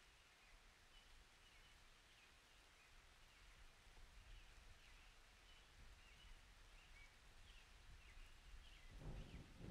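Near silence: faint room tone with small birds chirping faintly in the background, short high chirps about once or twice a second. About nine seconds in, a louder noise sets in.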